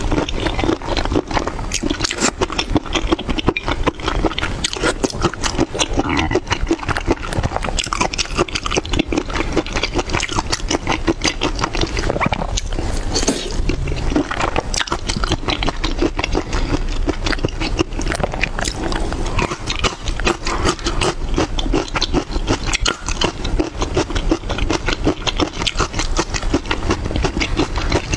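Close-miked chewing and lip-smacking: a large chili-coated shrimp being bitten and chewed, with dense wet crackles and smacks that run on without a break.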